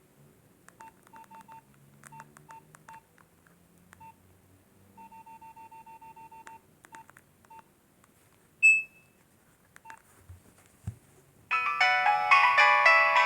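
Nokia 1208b keypad beeps: short single key tones, then a quick run of repeated beeps as a key is held, then one louder, higher beep. About eleven seconds in, a polyphonic ringtone starts playing from the phone's speaker, much louder than the beeps.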